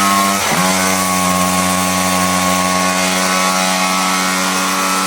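Ported Husqvarna 543XP two-stroke chainsaw engine running at full throttle under load on a dyno, a steady high-pitched tone. About half a second in, the pitch dips briefly and comes straight back, then it holds steady.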